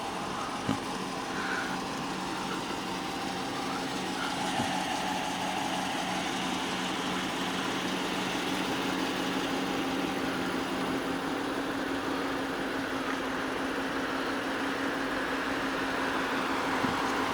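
Vehicle engine idling with a steady hum, with a brief click near the start and another near the end.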